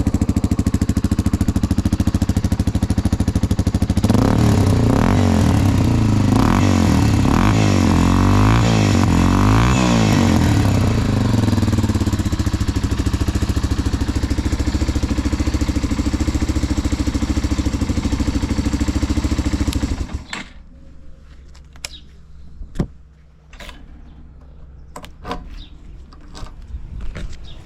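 Yamaha Serow 225WE's air-cooled single-cylinder four-stroke engine, breathing through a Supertrapp up-mounted muffler, idling, then revved in a quick series of blips that settle back to idle, running without abnormal noise. About two-thirds of the way through the engine stops abruptly, leaving a few light clicks.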